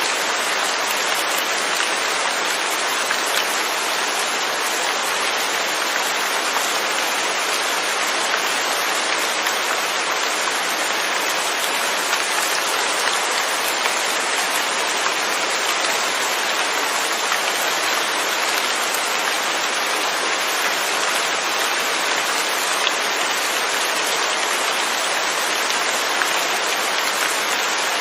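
Steady rain falling: a dense, even hiss of many drops, with no thunder.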